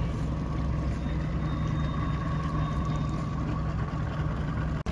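Boat outboard motor running steadily: a low drone with a faint whine over it. The sound drops out for an instant near the end.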